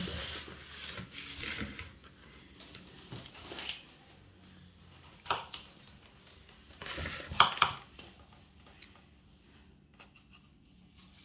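Kitchen knife cutting the rind from wedges of yellow melon, with the blade and melon knocking on a wooden cutting board: scattered scraping cuts and knocks. The loudest strokes come about seven seconds in, and only faint clicks remain near the end.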